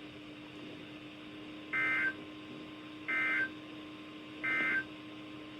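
Emergency Alert System SAME data tones from a NOAA Weather Radio broadcast: three short bursts of warbling two-tone data, about 1.3 s apart. Short bursts like these are the end-of-message code that closes an alert. A steady low hum runs underneath.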